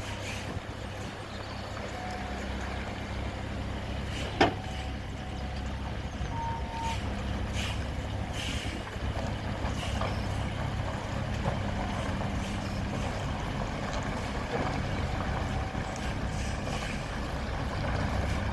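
A large engine running steadily, with a single sharp knock about four seconds in and a few short, faint beeps.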